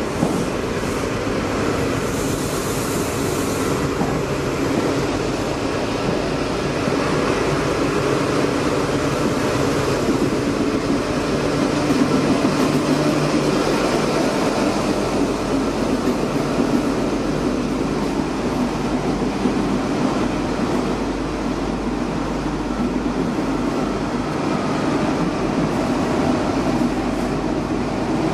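InterCity 125 (HST) diesel train moving slowly past at close range: a steady rumble of coaches rolling by, then the power car's diesel engine running as it passes, loudest about twelve seconds in.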